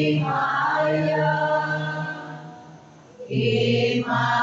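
A man singing slow, long-held notes into a microphone. The singing fades out about two and a half seconds in and starts again a little after three seconds.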